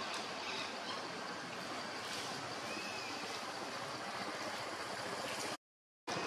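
Steady outdoor rushing noise, like running water, with a few faint high chirps over it; the sound cuts out completely for about half a second near the end.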